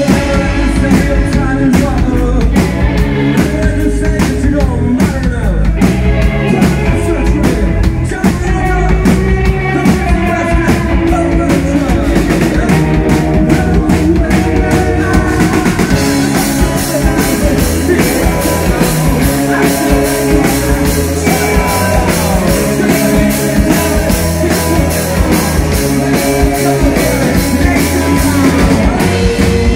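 Rock band playing live: loud drum kit, distorted electric guitars and bass driving a steady beat. About halfway through, the cymbals thicken into a constant wash.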